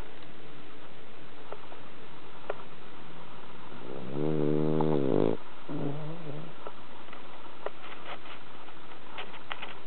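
A French bulldog snoring in deep sleep. One long snore comes about four seconds in, its pitch dipping and then rising again, followed by a shorter, weaker one, with a few faint clicks between breaths over a steady hiss.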